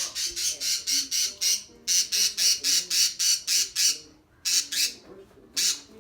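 Budgerigars squawking in a rapid run of harsh, high calls, about four or five a second. The run breaks briefly about two seconds in and again for a moment around four seconds, then goes on as a few scattered calls.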